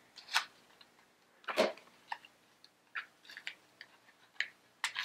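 A small packet being opened by hand: irregular crinkles and clicks, with one louder crackle about one and a half seconds in.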